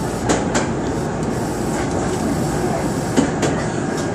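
Osaka Municipal Subway 66 series train running, heard from inside the front cab: a steady running rumble with two pairs of sharp wheel clicks from the track, one pair near the start and another about three seconds later.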